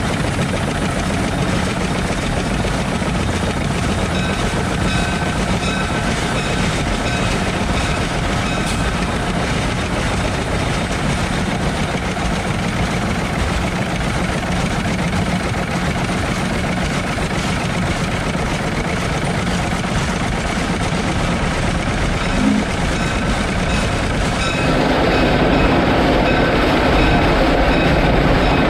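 Shay geared steam locomotive running along the track, heard close to its engine and running gear as a steady mechanical clatter. Near the end the sound grows louder and duller as the locomotive passes into a wooden shed.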